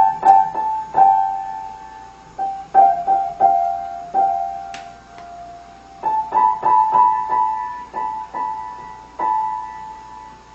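Piano notes struck one or two at a time at an uneven pace, each ringing and fading, with the notes moving a little higher about six seconds in.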